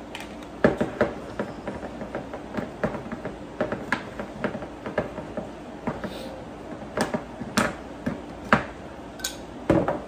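Handheld manual can opener being cranked around a small tin can: a quick run of small metal clicks as the cutting wheel turns. A few louder knocks come near the end.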